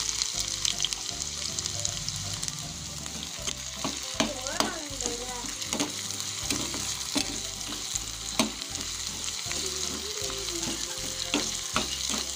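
Sliced shallots frying in hot coconut oil with a steady sizzle, while a wooden spatula stirs them around the pan with repeated scraping clicks.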